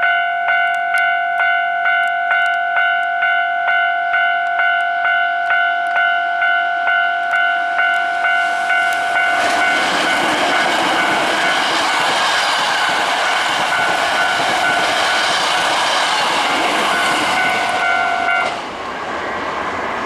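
Japanese level crossing's warning bell ringing in an even, repeating ding, nearly two a second; about halfway through, a Hankyu Kyoto Line train passes over the crossing, its running and wheel noise loud over the bell. The bell stops shortly before the end while the train noise carries on more quietly.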